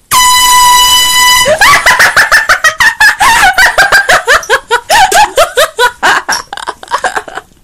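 An air horn blasts once for about a second and a half: a single steady, piercing note. Right after it a person laughs loudly and hard in rapid bursts.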